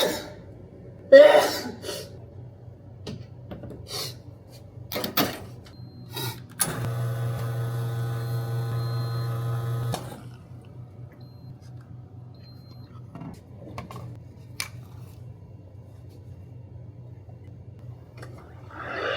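Two loud sneezes in the first second or so, then clicks and knocks of coffee equipment being handled. A small electric motor hums steadily for about three seconds in the middle. Near the end the espresso machine's steam wand starts hissing.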